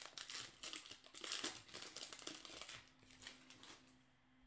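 Bowman baseball cards being handled in the hands, sliding and rubbing against one another in a run of quick papery swishes and crinkles that die away near the end.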